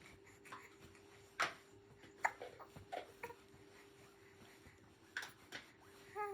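Two-month-old baby hiccuping: short, sudden hics at uneven intervals, the two strongest about a second and a half and two and a quarter seconds in, over a faint steady hum.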